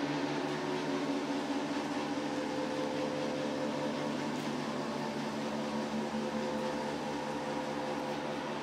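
A steady machine hum with several held tones over an even hiss, unchanging throughout.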